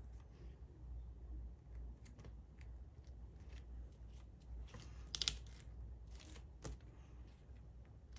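Origami paper being folded and handled on a tabletop: faint, scattered rustles and small crinkles, with a louder crinkle about five seconds in.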